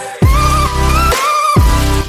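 Background electronic pop music without vocals: a gliding synth lead over pulsing heavy bass, the bass dropping out briefly and coming back in about a quarter second in.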